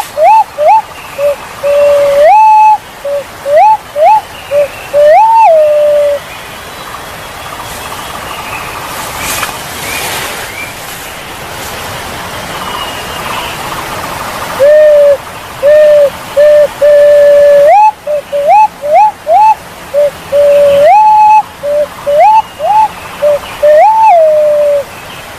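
Calls of the punai walik jawa, a green pigeon: a loud series of short whistled notes, some gliding upward and some held level, in two bouts with a pause of about eight seconds between them, over a steady rushing noise like running water.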